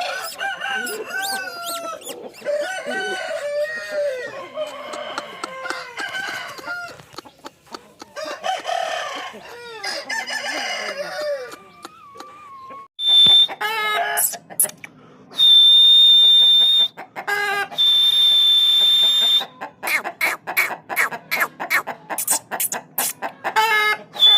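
Aseel chickens calling, a run of clucks and crowing calls over the first half. In the second half a loud, steady, high-pitched tone sounds several times among sharp clicks.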